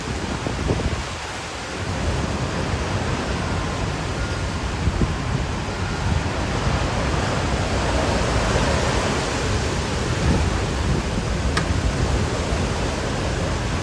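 Hurricane wind and rain: a steady rushing noise with wind buffeting the microphone, a little stronger after about two seconds.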